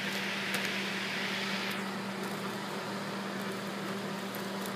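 Excalibur food dehydrator's fan running with a steady hum, a brighter hiss above it fading out about two seconds in. A few faint light clicks as dried chili pieces are turned over on the tray.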